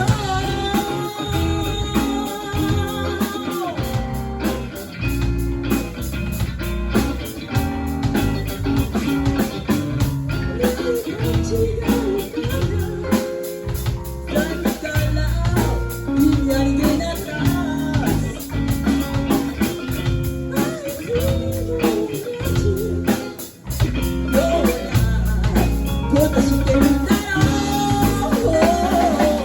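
Rock band playing an instrumental break between sung lines, with guitar to the fore over bass and drum kit.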